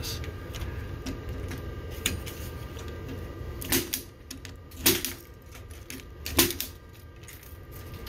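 Punch-down tool seating Cat6 wire pairs into a patch panel's terminals: three sharp snaps in the second half, about a second or a second and a half apart, with a fainter click before them.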